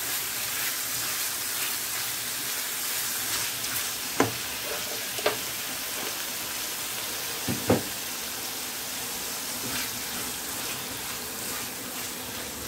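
Chicken livers sizzling steadily in butter in a non-stick frying pan, stirred and turned with a silicone spatula. A few short sharp ticks stand out about four, five and seven and a half seconds in.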